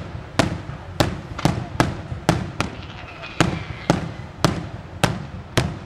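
Daytime aerial fireworks shells bursting in a rapid, irregular barrage of sharp bangs, about two a second, each ringing out briefly.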